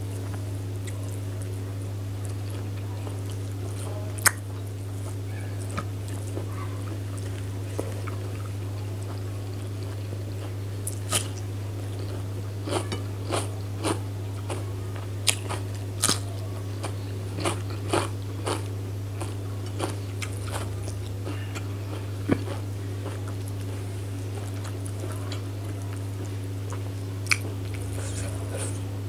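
Close-miked eating sounds: biting and chewing chicken curry with rice, with scattered sharp mouth clicks and smacks that come thickest in the middle, over a steady low hum.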